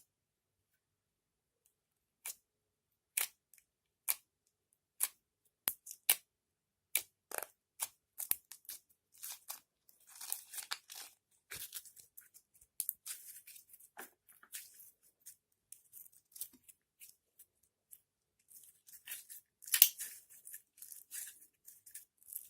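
Store-bought slime being pressed and stretched by hand, making sticky pops and clicks: single pops at first, then a dense crackle from about ten seconds in, loudest near the end.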